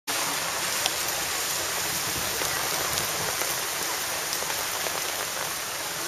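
Heavy typhoon rain falling on an umbrella overhead: a steady hiss with scattered sharp ticks of single drops.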